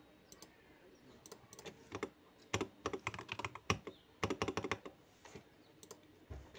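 Typing on a computer keyboard: a few scattered keystrokes, then a quick run of them for about two seconds starting about two and a half seconds in.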